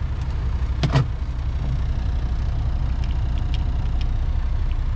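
Western Star semi truck's diesel engine idling, a steady low rumble heard inside the cab, with one sharp knock about a second in and a few faint ticks later.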